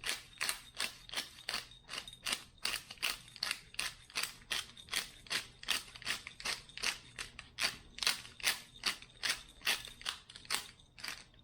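Hand pepper grinder being twisted, a steady run of crunchy grinding strokes at about three a second. It stops shortly before the end.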